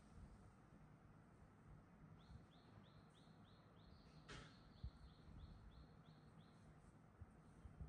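Near silence, with a faint, rapid run of short high chirps from a small animal, about four a second, starting about two seconds in and lasting about four seconds. There is one brief soft rustle midway through.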